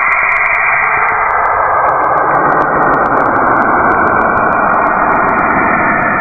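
A space 'planet sound' recording, made by turning spacecraft radio or electromagnetic measurements into audio: a loud, steady rushing noise with no clear pitch. Faint clicks sound above it.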